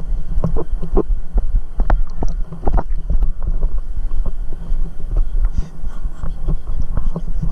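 Wind buffeting a handheld camera's microphone: a loud, uneven low rumble, with many small knocks and clicks from handling.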